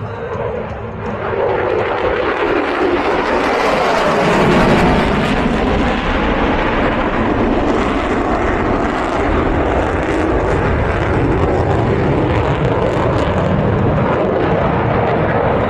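Aircraft engine noise from a plane flying past, building over the first two seconds and then holding loud and steady.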